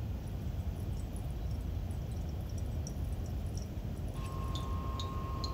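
Faint pouring of liquid through a glass filter funnel, with small clinks of glassware. About four seconds in, a steady high-pitched hum starts, with soft ticks about twice a second.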